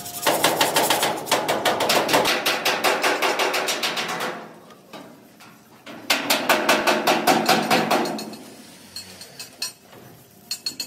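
Hammer beating metal in rapid, even blows, about five a second: one run of about four seconds, then after a pause a second run of about two seconds.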